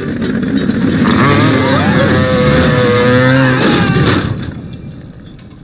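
Motorcycle engine revving hard as the bike takes off, with a loud rushing noise; it holds for a few seconds, then fades away about four seconds in.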